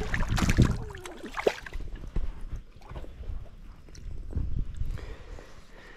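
A hooked smallmouth bass splashing and thrashing at the water's surface as it is reeled in, loudest in the first second and a half, with smaller splashes about two seconds and four and a half seconds in.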